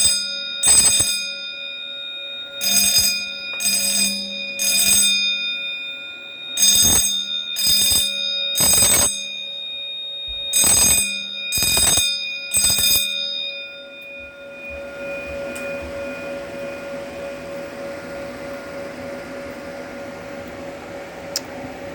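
Fire alarm bell ringing in the code-3 temporal pattern, three rings about a second apart and then a pause, repeated: the evacuation signal of a smoke detector in alarm. The bell stops about 13 seconds in, leaving a quieter steady hum.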